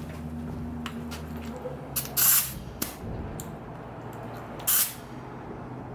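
Compressed air in a mini truck's air-bag suspension hissing in two short bursts, about two seconds in and again near five seconds, over a steady low hum. The right air bag has a hole and won't hold air.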